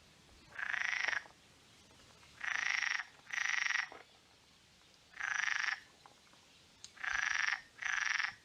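Frog croaking, taken for a marsh frog: six short buzzy calls, each well under a second, some in close pairs.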